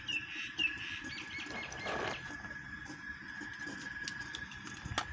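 Broken charcoal briquettes being spooned into a model live-steam locomotive's firebox: a soft scrape about two seconds in and a sharp metal clink near the end. Under it run a steady thin high whine and a few faint bird chirps.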